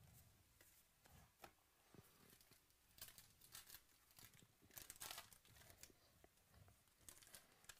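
Faint tearing and crinkling of a trading card pack's wrapper being ripped open by hand, in several quick bursts from about three to five seconds in. A few light clicks of cards being handled come before and after.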